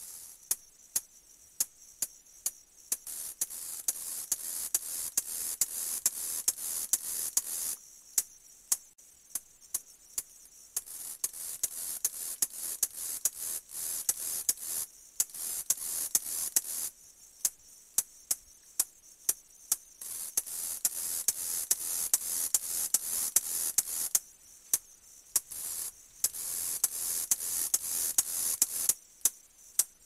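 Grasshopper clicking: sharp dry clicks about two to three a second, alternating every few seconds with stretches of high, hissing buzz from its stridulation.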